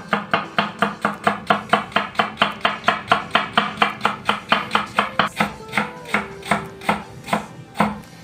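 Kitchen knife slicing white cabbage leaves into fine strips on a wooden cutting board: a steady run of quick cuts, about four a second, that grow weaker and more spaced out near the end.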